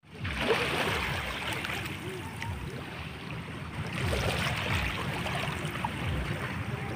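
Shallow sea water lapping and sloshing, with wind buffeting the microphone in a low rumble and faint distant voices.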